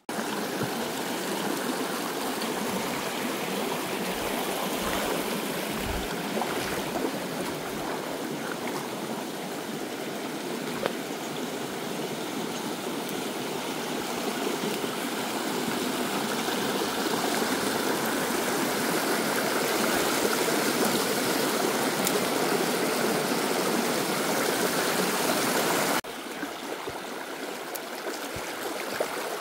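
A small, shallow stream running low, with a steady rush and trickle of water over the riffles. The sound drops suddenly in level near the end.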